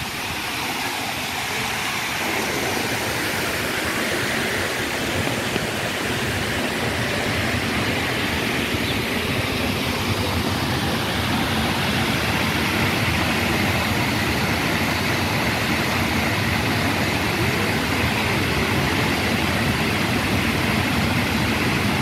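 Steady rush of water from a multi-jet fountain splashing into its basin, slowly growing louder.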